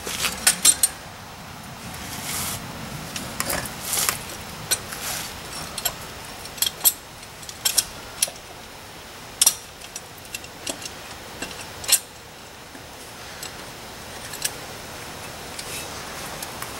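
Scattered metallic clicks and clinks of a steel C-clamp being fitted and worked against a disc brake caliper to push its pistons back in, with a quick cluster of clinks near the start.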